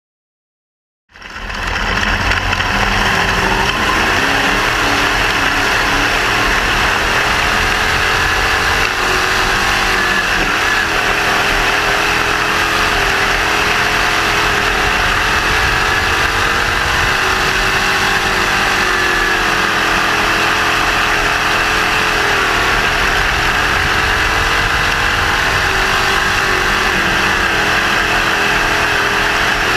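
Crate sprint car's GM 602 crate V8 engine running steadily at an even, moderate pace, with only small rises and falls in pitch. It is heard from on board the car and starts suddenly about a second in.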